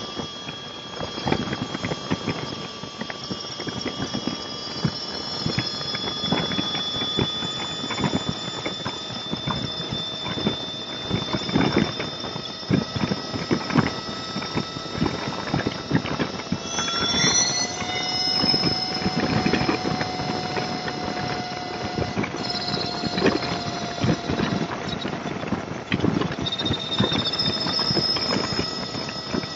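Motorcycle riding slowly through freeway traffic: a steady high-pitched whine of several tones that jump up in pitch about seventeen seconds in, over uneven wind and road rumble.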